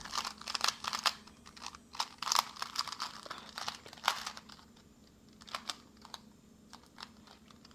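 A 2x2 Rubik's cube being turned fast during a speed solve. The layers click and clack in quick flurries, with short pauses between them.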